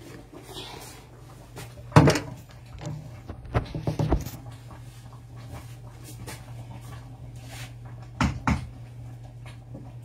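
Sharp knocks and clatters of handling in a kitchen: one loud knock about two seconds in, a cluster near four seconds, and two more near the end, over a steady low hum.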